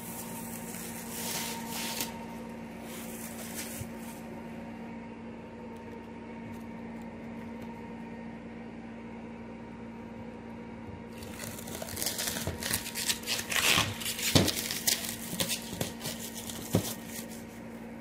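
Protective plastic wrap being pulled off a portable twin-tub washing machine and crumpled. It crinkles in short bursts about a second and three seconds in, then crackles more densely and loudly in the last third, over a faint steady hum.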